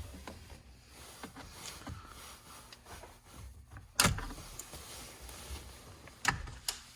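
Small plastic trim covers on the sides of a Nissan 350Z steering wheel being pried and popped out, with faint scraping and handling noise. There is one loud sharp snap about four seconds in and two lighter clicks near the end.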